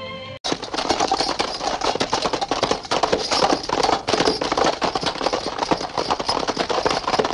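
Hoofbeats of a group of horses galloping, a dense, uneven clatter. It starts abruptly about half a second in, where a strain of guitar music cuts off.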